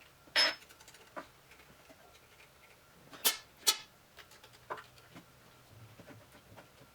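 A few sharp clicks and knocks of small hard parts being handled: a louder knock just under half a second in, two sharp clicks close together a little after three seconds in, and fainter taps in between and after.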